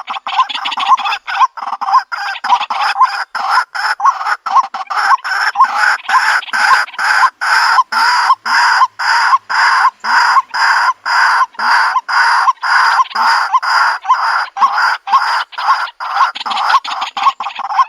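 White-breasted waterhen calling: a long, steady run of harsh, repeated notes at about two to three a second.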